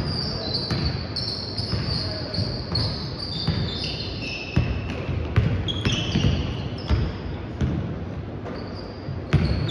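Basketball game in play: the ball bouncing on the court, with repeated short, high-pitched sneaker squeaks and players' voices.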